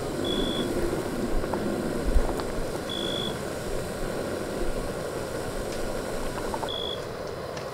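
Camp stove burner running steadily under a pot of simmering soup, with a few faint knocks from the ladle stirring the pot. A short high beep sounds about every three seconds.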